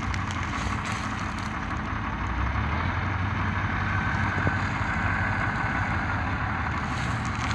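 MTZ-80 tractor's diesel engine idling steadily while the tractor stands still after failing to pull a truck out of the mud.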